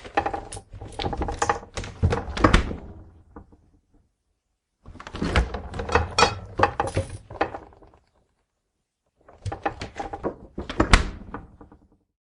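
A door being opened and shut three times: each take is a run of latch and handle clicks and rattles ending in the thud of the door closing, with silence between takes.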